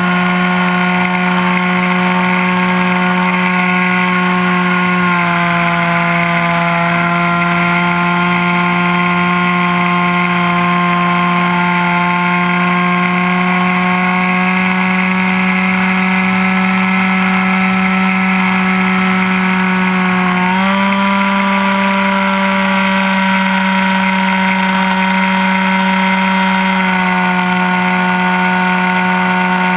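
ASP 61 two-stroke glow engine running at high revs in flight, heard close up from on board. Its pitch steps down slightly about five seconds in, rises quickly around twenty seconds in, and drops back a little near the end.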